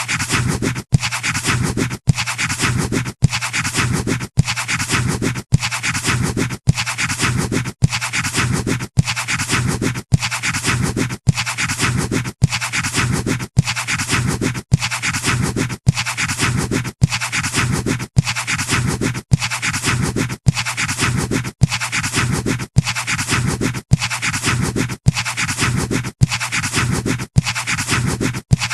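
Pencil scratching on paper: a run of even drawing strokes, about one a second, each separated by a very short break.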